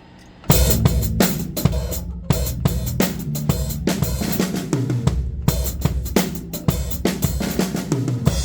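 Drum kit played in a steady groove of bass drum, snare and cymbals, starting about half a second in, with a brief gap about midway, and stopping just before the end.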